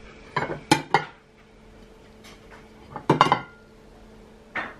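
Tableware clinking as dinner is served: a metal serving spoon knocking against a pan and plates. Three sharp clinks near the start, a cluster of ringing clinks about three seconds in, and one more near the end.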